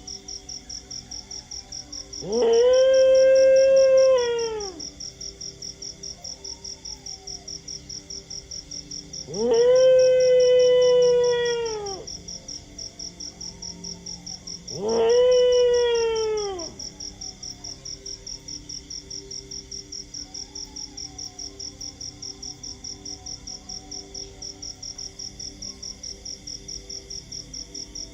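A dog howling three long times, each howl rising slightly and then falling away. Fainter, shorter howls come in between, over a steady fast chirping of crickets.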